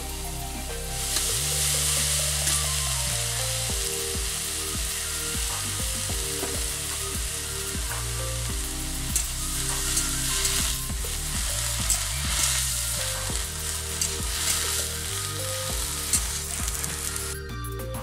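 Bottle gourd leaves sizzling as they fry in a steel karahi over a wood fire, stirred with a metal spatula that scrapes and clicks against the pan. The sizzle drops away near the end.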